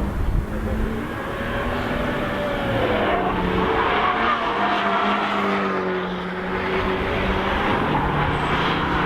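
Several cars driving past on a race circuit, their engines revving hard, with pitches rising and falling as they accelerate and change gear, more than one engine heard at a time.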